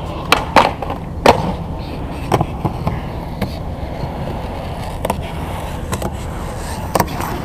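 Skateboard rolling on concrete, with three sharp clacks of the board in the first second and a half, then fainter knocks from the wheels and board through the rest.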